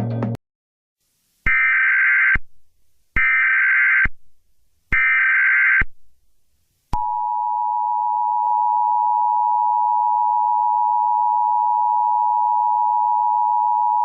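Emergency Alert System broadcast signal: three short digital SAME header bursts, each under a second and about a second apart, which encode the alert's header. About seven seconds in comes the loud, steady two-tone EAS attention signal.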